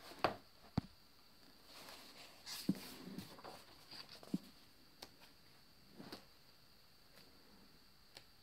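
Faint handling of a photobook: soft rustles of paper and about half a dozen light clicks and taps as the pages are turned.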